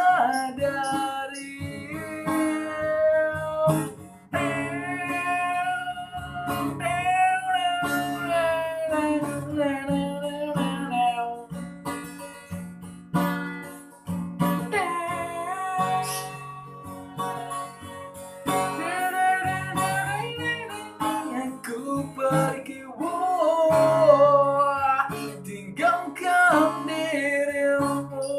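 A voice singing an Indonesian pop ballad with guitar accompaniment, holding long notes.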